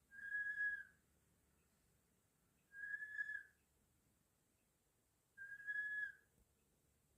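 Sleeping goslings 'snoring': three soft, level whistle-like peeps, each about a second long, spaced about two and a half seconds apart.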